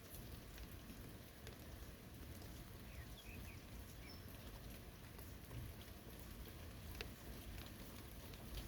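Light rain falling: a steady soft hiss with scattered drops pattering. A few faint high chirps come about three seconds in.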